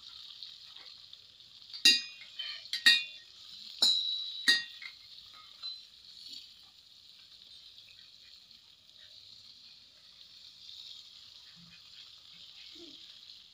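Fish frying in oil in a kadai, with a steady sizzle. A metal spatula clinks against the pan about five times between about two and five seconds in.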